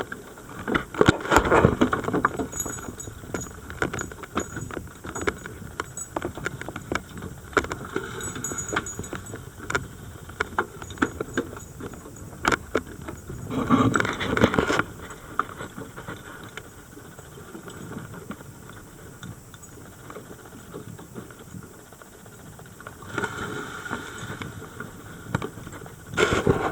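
Underwater sound on a scuba dive: steady crackling clicks, broken about every ten seconds by a bubbling surge of exhaled regulator bubbles.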